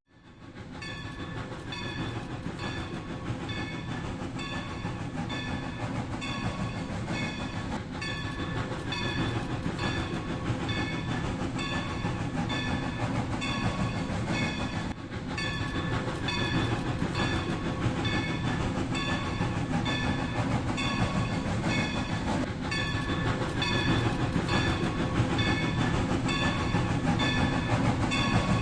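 Rail King battery-powered toy train running on its plastic track: a steady motor-and-wheel rattle with a repeating pattern of short, high electronic tones over it.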